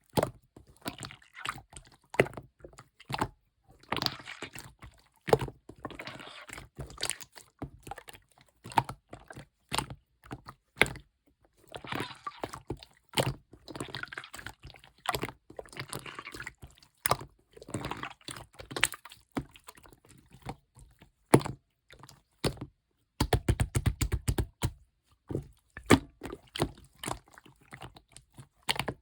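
Light-green clear slime being squished and pressed by hand, making wet sticky clicks and pops. About 23 seconds in comes a quick, dense run of pops lasting about two seconds.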